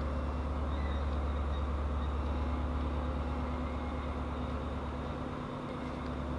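Modernised DR1A(M) diesel multiple unit, with an MTU 8V396 diesel engine and a Voith hydraulic transmission, moving slowly at the platform. It gives a steady low drone with a faint whine, a hum that resembles the traction motors of an ER2/ER9 electric train.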